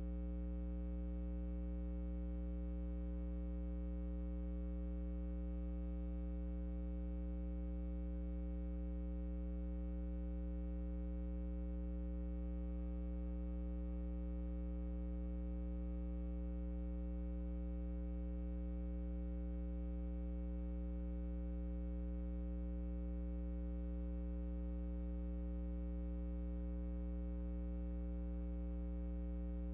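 Steady electrical hum: a low buzz of several fixed pitches held dead level, with no change in level or pitch. The announced song is not heard.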